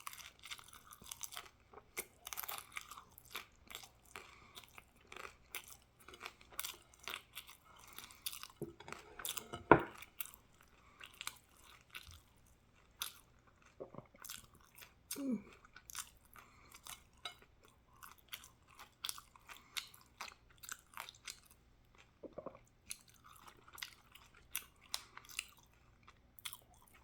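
A person chewing and biting crunchy food close to the microphone: a steady, irregular stream of crunches and mouth clicks. One sharp, much louder knock about ten seconds in.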